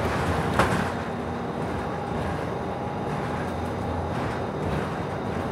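Cabin noise inside a Nova Bus LFS city bus on the move: steady engine and road noise, with a single sharp knock about half a second in.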